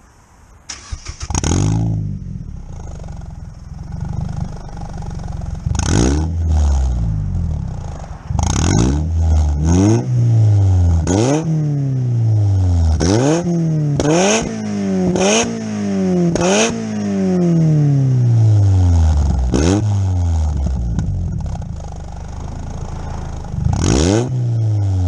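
Mazda MX-5 NC's four-cylinder engine, breathing through a custom 4-1 manifold, 2.5-inch pipework and a centre-exit exhaust with dual tips, starting up about a second in and then idling. It is blipped about a dozen times, each rev rising sharply and falling back to idle, with one longer rev sinking slowly back to idle in the middle.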